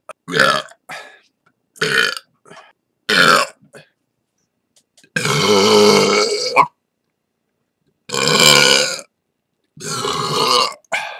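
A person burping, one burp after another: four short burps in the first few seconds, then three long, drawn-out belches of about a second or more each, separated by short silences. The long ones are loud.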